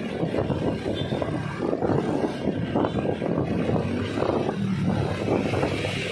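Road vehicle noise: an engine running steadily, mixed with road and wind rush.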